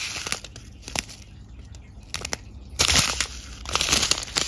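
Clear plastic zip bag of diamond-painting drills crinkling as it is handled, with scattered clicks and a louder spell of crinkling about three seconds in.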